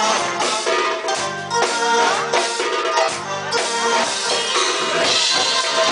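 A live Arabic band playing a baladi dance tune, with a drum beating a quick, steady rhythm under a melodic instrument line.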